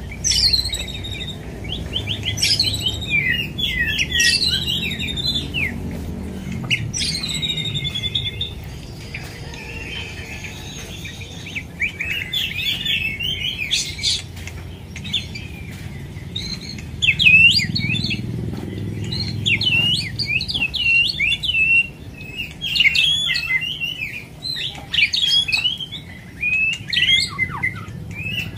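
White-rumped shama (murai batu) singing: a long, varied run of quick whistled phrases with fast sweeping and down-sliding notes, broken by a short lull near the middle.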